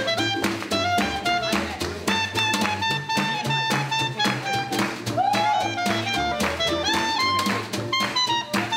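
Small acoustic swing jazz band playing: a snare drum struck with sticks keeps a steady beat, a clarinet plays the melody, and low bass notes move underneath.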